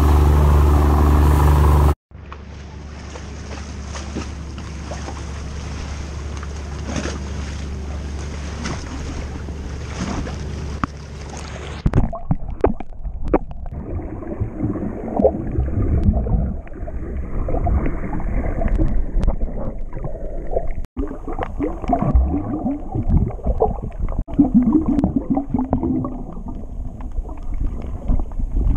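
A boat's engine running loudly, cut off about two seconds in, then a quieter steady hiss over a low hum. From about twelve seconds in, muffled underwater sound of a scuba diver's exhaust bubbles gurgling in irregular bursts.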